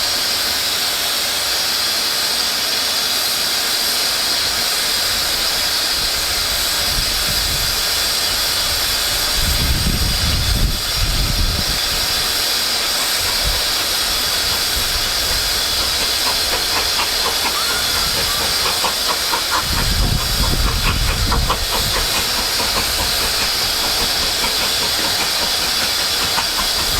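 Steam locomotive hissing steadily, with two louder low rumbles about ten and twenty seconds in and a run of quick, regular beats in between.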